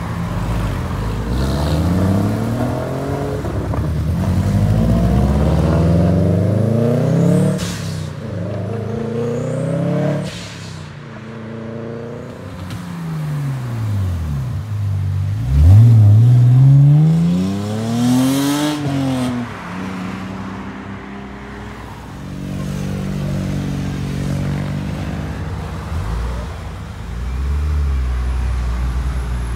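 Several cars pull away one after another, including a Porsche Boxster and two BMWs (a 3 Series saloon and a 1 Series coupé). Each engine revs up and drops in pitch through the gears as it passes and fades. The loudest is a car passing close about halfway through, its engine note rising sharply.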